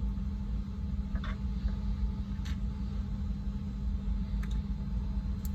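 A few faint, scattered plastic clicks as a mechanical keyboard switch is handled and pressed back into its hot-swap socket, over a steady low hum.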